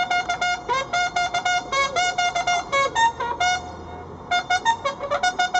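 Military bugle sounding a fast call of short, clipped notes jumping between a few fixed pitches, part of the honours to the fallen, with a brief pause about two-thirds of the way through.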